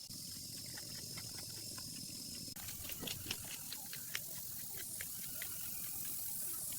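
Heavy rain falling: a steady hiss with scattered drops tapping irregularly. About two and a half seconds in, the hiss turns suddenly brighter and the taps get louder.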